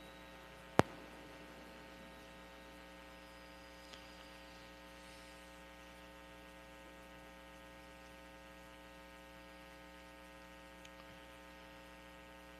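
Faint, steady electrical mains hum, with one sharp click about a second in.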